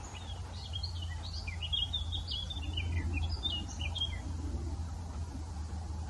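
A small bird singing a quick, twittering song of short chirps that stops about four seconds in, over a steady low rumble.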